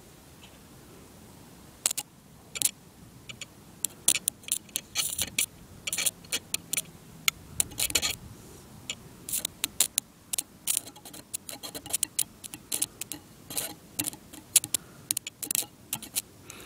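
A wire tip fed by an 80 W solar panel dabbed against a bolt on a metal plate, making a small electric arc that crackles and snaps in irregular bursts as it strikes and breaks, starting about two seconds in.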